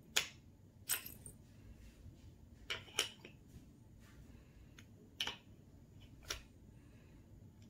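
Painted wooden shape pieces knocking lightly against one another and against the wooden peg board as a toddler picks them up and fits them onto the pegs: about six separate clacks, spread out.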